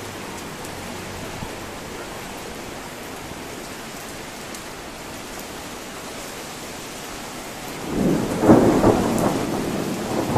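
Thunder from a sudden summer thunderstorm: a steady background hiss, then about eight seconds in a loud, irregular rumble of thunder breaks in and keeps going.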